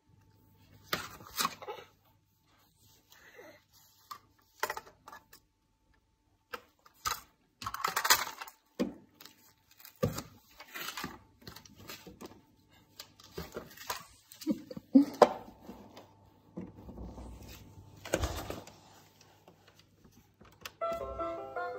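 Irregular taps and knocks of small hands on a plastic toy and the window sill. About a second before the end, a battery-powered musical farmhouse toy starts playing a bright electronic tune of short notes when its button is pressed.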